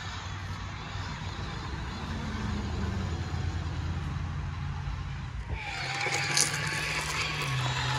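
Radio-controlled toy construction machines running: a steady motor hum that changes abruptly about five and a half seconds in to a different sound with a higher whine.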